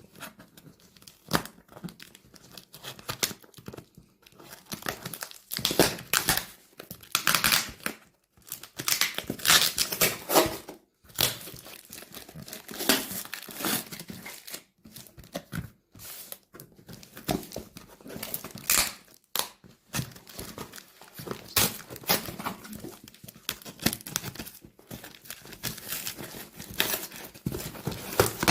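Speaker packaging being unwrapped by hand: irregular crinkling and tearing with scattered clicks and knocks. It comes in bursts separated by short pauses.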